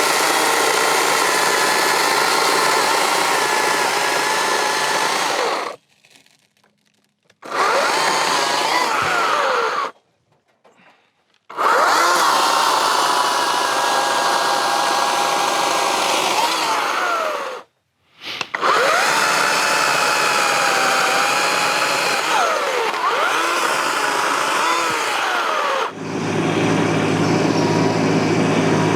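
Battery chainsaw limbing an oak log: a high motor whine that dips in pitch as the chain bites into the wood and climbs again as it clears. It stops dead three times for a second or so. About three seconds before the end the saw falls silent, and a tractor's diesel engine is heard running at a low, steady pitch.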